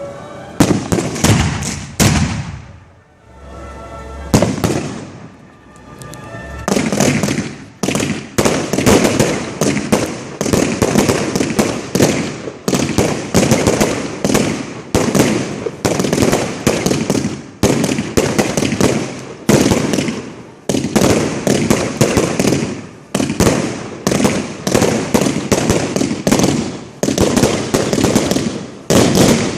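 Professional fireworks display heard close to the firing site. A few separate bangs come first, then from about seven seconds in a dense barrage of launches and bursts, several a second.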